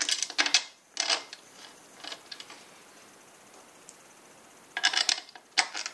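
Metal bolts and washers clinking and clicking as they are picked up and set into the rack's front mounting holes, in two short clusters of clicks, one at the start and one about five seconds in.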